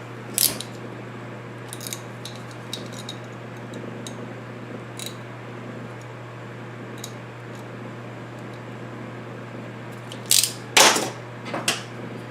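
Small metal hand tools clicking and scraping against a monitor chassis circuit board as glue is picked away from a component, in scattered sharp ticks with two louder clacks near the end. A steady low hum runs underneath.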